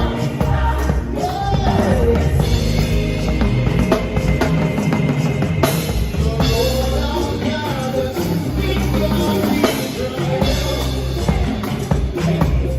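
Live gospel band music: a drum kit playing under singing voices, with a strong bass line.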